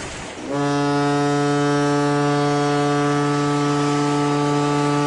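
Ship's horn blowing one long, steady blast that starts about half a second in, sounded to open a memorial ceremony at sea.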